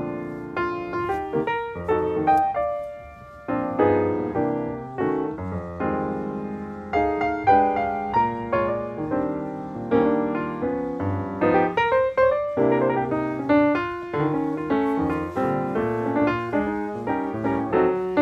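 Background piano music, a steady run of notes that strike and die away, laid over the vlog.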